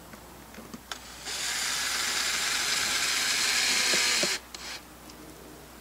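Black and Decker cordless drill running for about three seconds, driving a screw, with a few clicks before it starts and as it stops.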